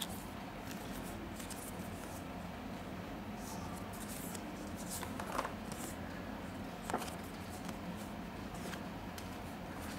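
Printed paper leaflets and booklets being handled and leafed through: a few short paper rustles, the clearest about halfway through and again a second and a half later, over a steady low background hum.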